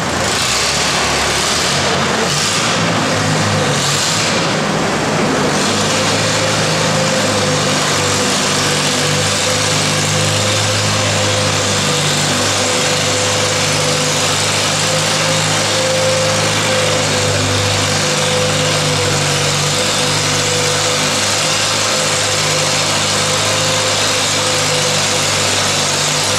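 Antique Allis-Chalmers tractor engine running under load as it pulls a weight-transfer sled, a steady, even drone after a few brief surges in the first five seconds.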